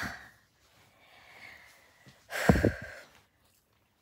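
A woman's breathy sigh: soft breathing, then one heavy exhale a little past two seconds in.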